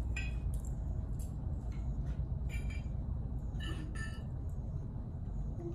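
Metal scent articles clinking a few times as a Shetland sheepdog noses through the pile, each clink ringing briefly, over a steady low hum.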